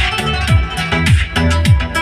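Dance music played loud through active PA speakers, with a deep kick drum that drops in pitch on each beat, a little under twice a second.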